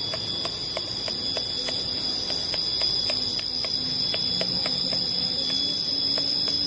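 A bamboo skewer punching holes in a plastic bag of soft fish bait: a quick series of small clicks or pops, about three a second, that stops near the end. A steady high-pitched drone runs underneath.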